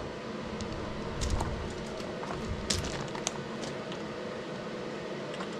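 A steady low machine hum with a few scattered light clicks and knocks of handling.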